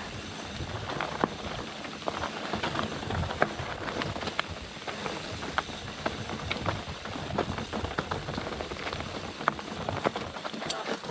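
Mountain bike rolling down a dirt singletrack: continuous tyre and trail noise with frequent irregular sharp clicks and knocks as the bike rattles over the ground.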